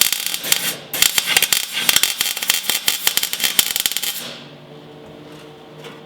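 MIG welder arc crackling as a bead is run on sheet steel: about a second of crackle, a brief break, then about three more seconds before it stops.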